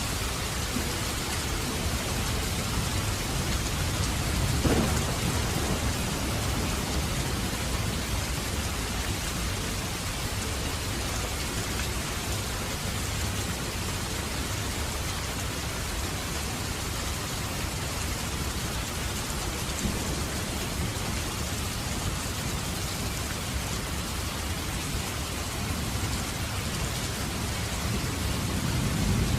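Heavy rain falling steadily as a dense, even hiss of raindrops. A low rumble swells about five seconds in and again near the end.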